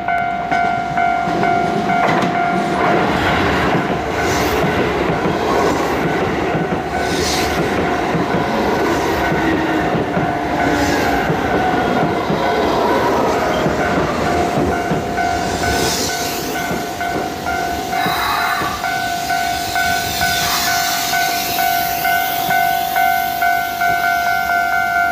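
Keisei electric train passing a level crossing, its wheels clattering over the rails, while the crossing's warning alarm keeps ringing as a steady repeated tone.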